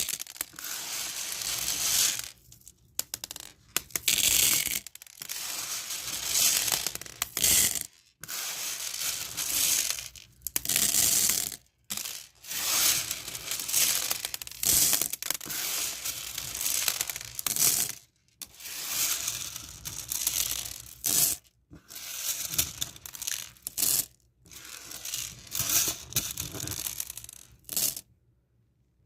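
Small beads rattling and clattering together as they are handled, in runs of one to several seconds with brief pauses, stopping about a second before the end.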